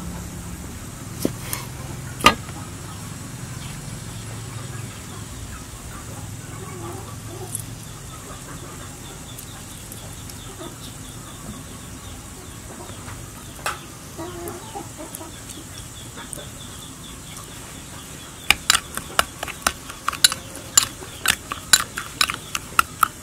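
Metal spoon stirring and mashing chili-garlic dipping sauce in a ceramic bowl, clinking against the bowl a few times early and then in a quick run of taps, two or three a second, over the last five seconds. Chickens cluck faintly in the background.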